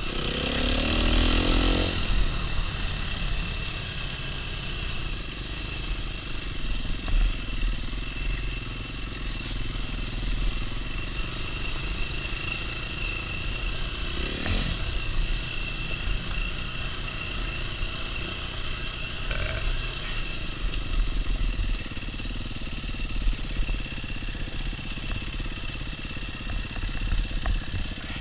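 Dirt bike engine running along a dirt trail, heard from the rider's own bike. It revs up, rising in pitch, over the first two seconds, then runs steadily with a thin high whine, with a short rev about halfway through.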